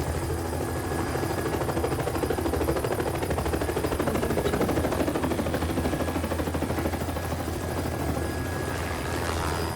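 Helicopter running, its rotor giving a rapid steady beat over a low engine hum. It grows louder toward the middle and eases off again near the end.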